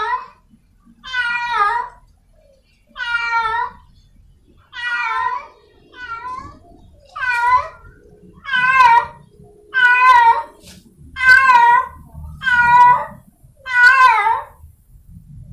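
Feral domestic cat in heat calling for a mate: a string of short, wavering yowls, about one every second and a half, growing louder after the first few.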